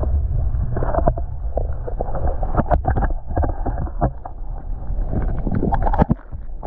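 Muffled water sloshing and knocking around an underwater camera lowered through a hole in the ice, heard through its housing as a low rumble with scattered short knocks.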